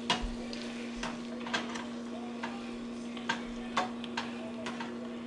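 Shrimp frying in butter in a skillet, the hot fat popping and crackling in sharp, irregular ticks about once or twice a second.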